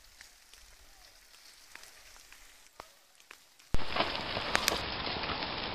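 Near silence for the first three and a half seconds, then an abrupt cut to a steady hiss of outdoor background noise picked up by a camcorder microphone, with small ticks in it.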